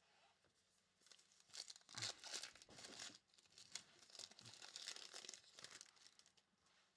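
Faint tearing and crinkling of a Revolution basketball card pack's wrapper being ripped open, loudest about two seconds in and tailing off before the end.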